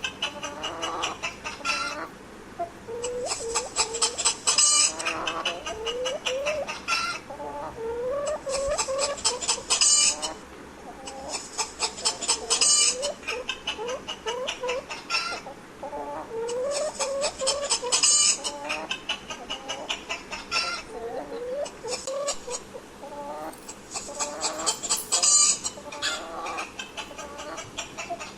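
Domestic hens clucking continuously in short rising calls, with bursts of higher, rapid chattering calls every couple of seconds.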